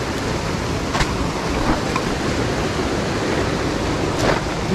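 Creek water rushing steadily over rocks and small rapids, with a couple of light clicks about a second in and near the end.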